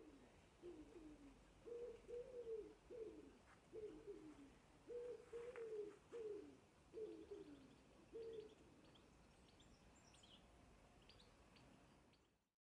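A bird calling quietly in a run of low, falling notes, about three every two seconds, that stops after about eight seconds; small birds chirp faintly near the end.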